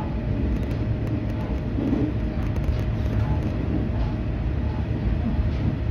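Diesel railcar running at speed, heard from inside the carriage: a steady low rumble of wheels on rail and engine, with a faint steady hum above it.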